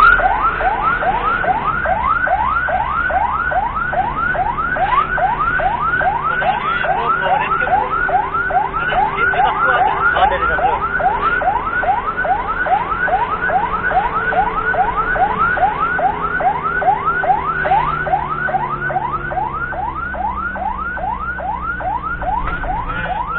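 Ambulance siren in rapid yelp mode: a rising wail repeated about three times a second, continuously, over a faint steady drone of the vehicle.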